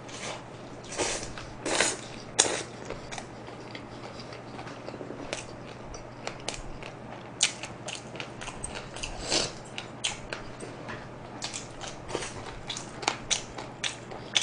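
A person biting into and chewing a slice of jalapeño fries pizza close to the microphone. It is a run of short wet smacks and sharp clicks, with the biggest bites in the first couple of seconds. A low steady hum runs underneath.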